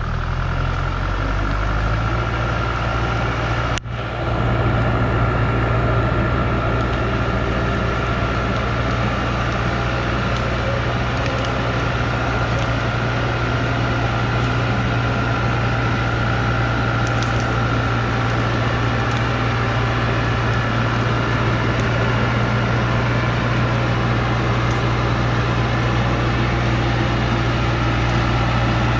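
Diesel engine of a loaded log truck running steadily under load as it crawls up a muddy slope, with a steady whine above the low engine note. A single click about four seconds in.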